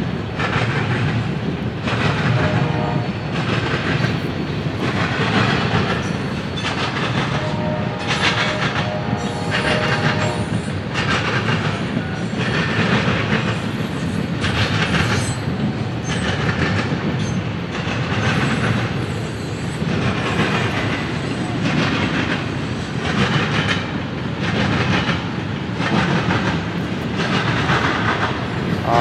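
Double-stack intermodal freight train passing, its wheels clacking over the rail joints about once a second over a steady rolling rumble.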